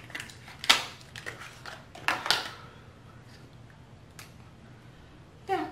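A plastic bronzer compact being handled and opened: a few sharp clicks and rustles, the strongest just under a second in and around two seconds in, with a fainter click about four seconds in.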